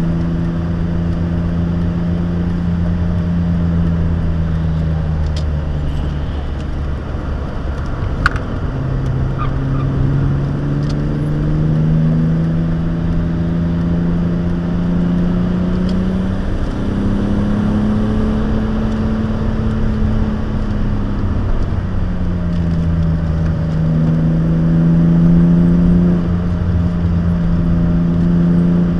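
Engine of a BMW E36 323i, a 2.5-litre straight-six breathing through a stainless aftermarket exhaust, heard from inside the cabin at track speed. The engine note climbs steadily under acceleration and falls back twice as the driver lifts or shifts, about 8 and 21 seconds in, over steady road noise. A single sharp click comes about 8 seconds in.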